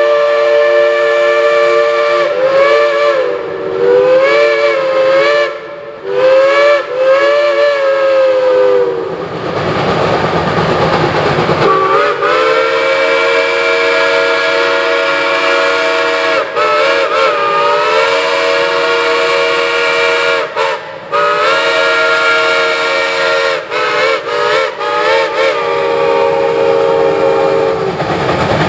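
Shay geared steam locomotives blowing their chime steam whistles: long blasts of several tones together, wavering in pitch where the whistle is worked. About ten seconds in the whistling stops for a couple of seconds of rushing steam noise, then resumes in long blasts with short breaks.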